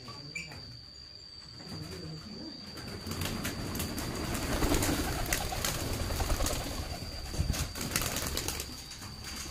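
Young pigeons stirring at close range, with wings flapping and rustling that grow louder about three seconds in, and some cooing.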